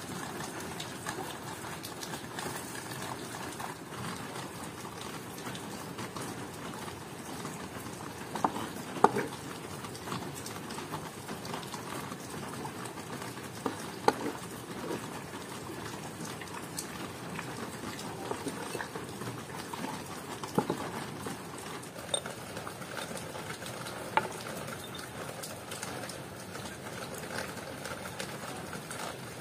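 Kitchen knife and utensils knocking now and then against a wooden cutting board and an earthenware cooking pot as diced onion is handled and added to the pot: a handful of short, sharp knocks over a steady background hiss.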